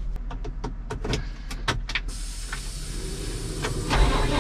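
Inside a Fendt 724 tractor cab: a quick, irregular run of clicks and knocks, then about two seconds in a steady whirring hiss comes on. Near the end the engine's low hum grows louder.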